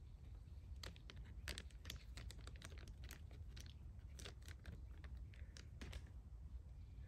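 Faint, irregular crinkling and crackling of packaging being handled and opened by hand, a quick run of small clicks over a steady low rumble.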